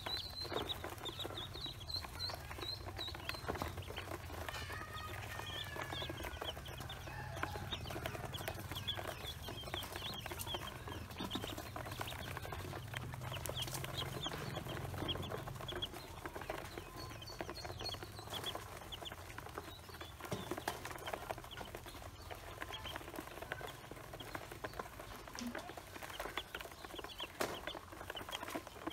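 A brood of domestic ducklings peeping constantly, many short high-pitched peeps overlapping one another.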